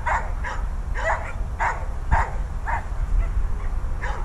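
Dog barking and yelping in quick succession, about two calls a second: the distress calls of an anxious dog shut in an enclosure away from its owner.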